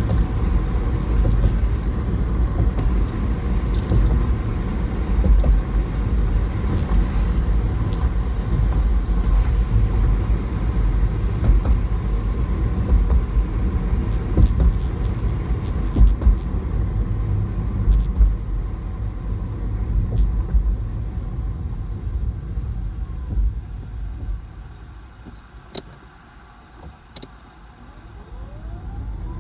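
Car driving: a steady low rumble of tyres on the road and engine. It dies away about three-quarters of the way through as the car slows almost to a stop, then an engine note rises as it pulls away again.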